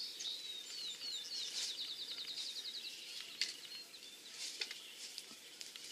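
A songbird singing: a few slurred notes, then a quick trill of about ten short notes a second lasting just over a second. A sharp click sounds about three and a half seconds in.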